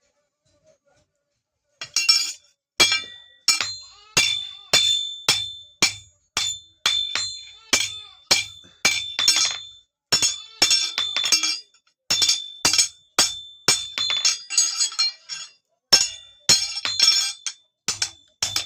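Hand hammer striking metal on an anvil in a steady rhythm, about two blows a second, each blow ringing briefly. The hammering starts about two seconds in.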